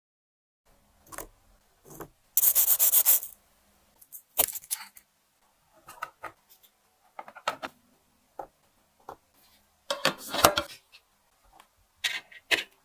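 Close-up handling of crisp baked butter cookies and clear plastic boxes: short clicks, taps and scrapes, with a dense rasping stretch about two and a half seconds in and a louder burst of clicks and rustling near ten seconds in.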